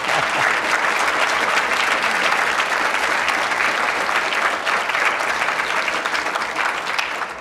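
An audience applauding: many hands clapping in a dense, steady patter that thins out near the end.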